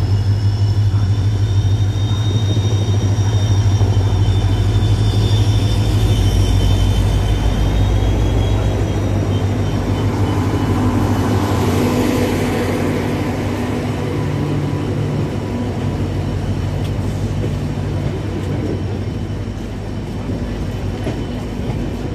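Express passenger train drawing into a station: the locomotive's steady low hum with a high wavering whine swells to a rushing peak as it passes, about twelve seconds in. Then the coaches roll by more quietly.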